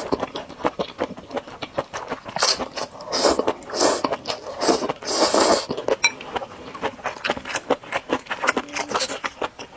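Close-miked eating: noodles slurped in several noisy bursts between about two and six seconds in, amid a constant patter of chewing and mouth clicks.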